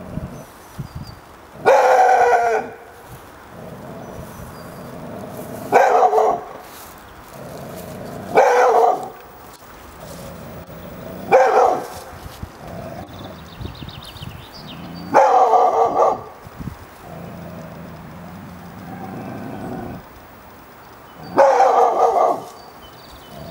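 Brindle mixed-breed dog barking six times, deep single barks spaced a few seconds apart, at two white-draped figures standing still ahead of it.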